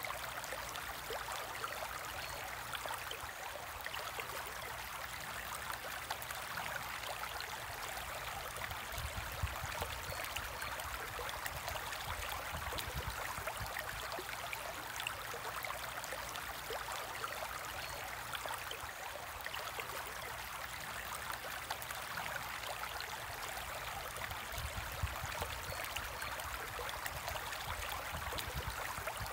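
Steady trickling and bubbling of water circulating in a home aquarium, with many small splashing ticks.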